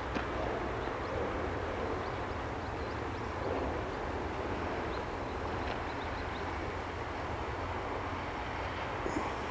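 Steady outdoor background rumble and hiss with a few faint high chirps, and two light knocks, one just after the start and one near the end.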